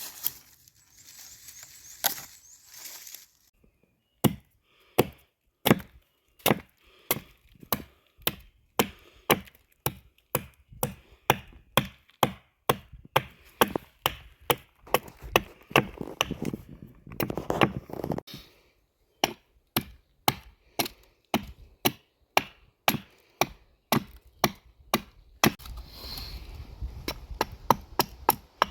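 Gränsfors Bruks Carpenter's Axe chopping into wood to rough out a spoon blank: a long, steady run of short, sharp chops, about two a second, starting a few seconds in.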